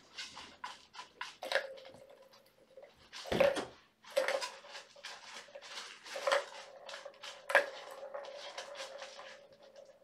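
Kittens playing with toys: a scattered run of clicks, knocks and rattles, the loudest knock about three and a half seconds in. A steady ringing tone hangs on after several of the knocks and holds on from about six seconds in.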